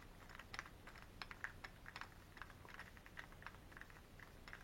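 Door lock hardware being handled: faint, irregular light clicks and taps of the new knob and lock parts.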